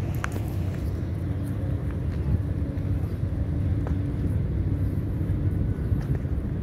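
Steady low engine rumble, with a faint steady hum that fades out about four seconds in.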